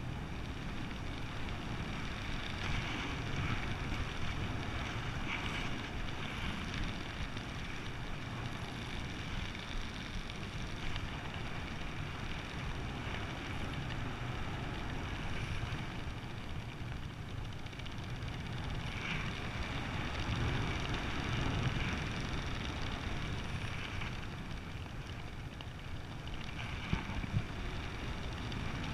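Steady wind rushing over the microphone during a descent under an open ram-air parachute canopy.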